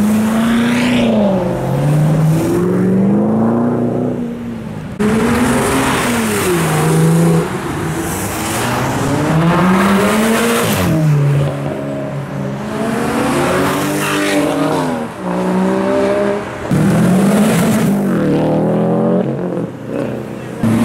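Cars accelerating hard past one after another, their engines revving up and dropping in pitch at each gear change; the first is a C7 Corvette convertible's V8.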